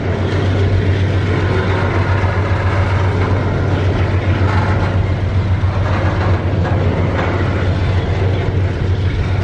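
Double-stack container well cars rolling past: a steady, loud rumble of steel wheels on the rails, with a few faint clicks from the wheels.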